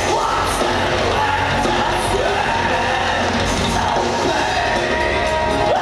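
A rock band playing loud and dense, with electric guitars and a drum kit, heard from among the audience in the hall.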